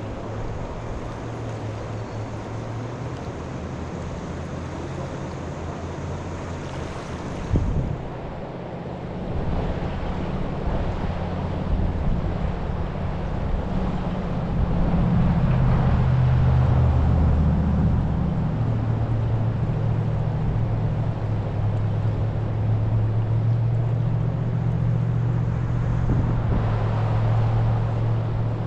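Steady low engine hum, growing louder from about nine seconds in and loudest around the middle, with a single knock about seven and a half seconds in.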